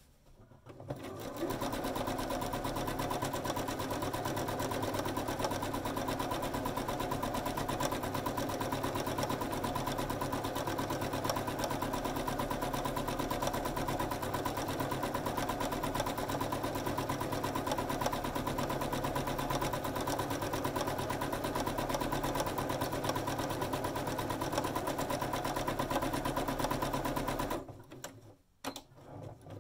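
Domestic electric sewing machine running fast and steady, free-motion stitching through layered fabric with a darning foot fitted. It starts about a second in and stops near the end.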